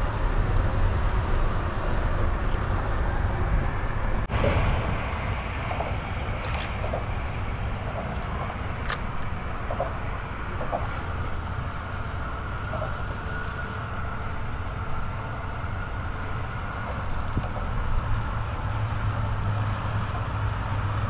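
Steady low rumble with a hiss over it, outdoor background noise, broken by a couple of faint clicks.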